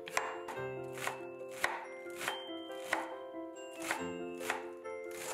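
Chef's knife dicing celery on a cutting board: a sharp knock of the blade on the board about every half second or so, over background music.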